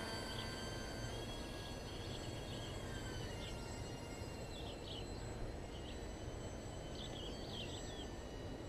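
Thin, distant high whine of a Pandora RC plane's electric motor as the plane taxis on skis through powdery snow, shifting in pitch now and then with the throttle. The motor needs a lot of power to push through the powder. A steady low rumble lies under it.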